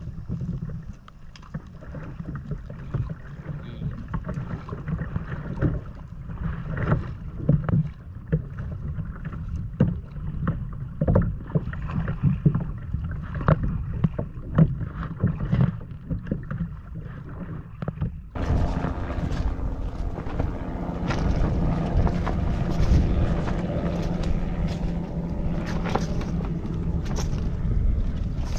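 Small motorboat under way on choppy lake water: a steady low motor drone with water slapping against the hull. About two-thirds of the way through, the sound cuts abruptly to a louder, fuller rush.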